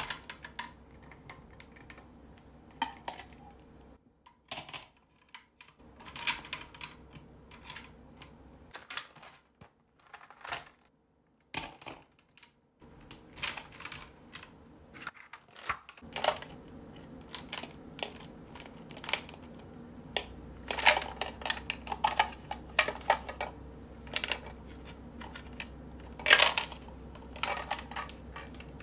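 Glue sticks clicking and clattering against each other and a clear plastic organizer as they are dropped into its compartments, in irregular light taps with a few short pauses.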